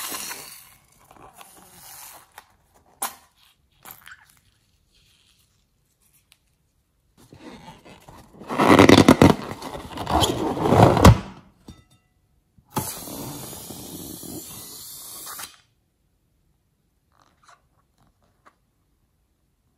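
Slime squelching as it is squeezed out of slime-filled rubber balloons into a bowl. In the middle comes a loud stretch of a rubber balloon being handled and rubbed in the hand. About two seconds later there is a steady hiss-like squirt of slime and air forced out of the balloon's neck, lasting a couple of seconds.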